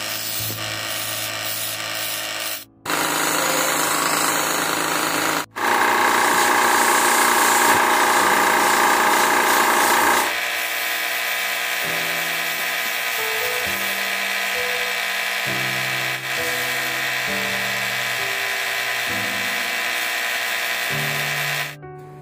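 Wood lathe spinning a turned wooden goblet while a turning tool and then sandpaper are held against the wood: a steady rasping hiss, loudest in the middle stretch, broken by two brief dropouts in the first six seconds. Background music with a melody runs under it in the second half.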